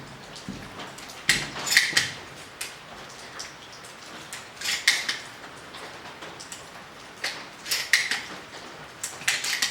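Sharp metallic clicks and clacks in small clusters, a group about every two to three seconds, some coming as quick doubles.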